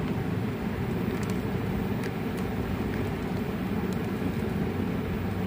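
Steady low-pitched background hum, with a few faint ticks.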